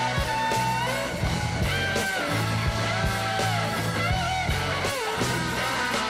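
Background rock music: a lead guitar line with bending notes over a steady drum beat.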